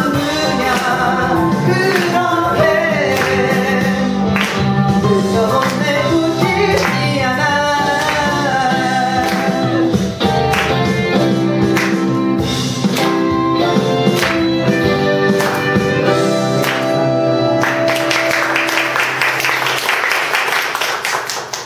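A man singing live into a microphone over instrumental accompaniment. The voice stops about halfway through and the accompaniment holds sustained chords to close the song. Audience applause takes over near the end.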